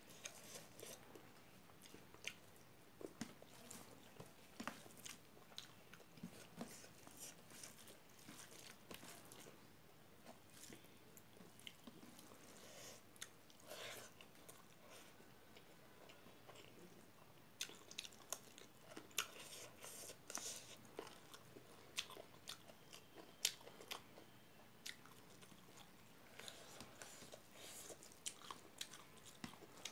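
Faint close-up eating sounds: a person chewing mouthfuls of rice eaten by hand, with scattered soft clicks and smacks of the mouth.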